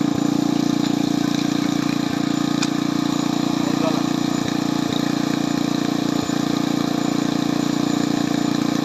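Engine running steadily at a constant speed, a low, even hum, with a faint click about two and a half seconds in.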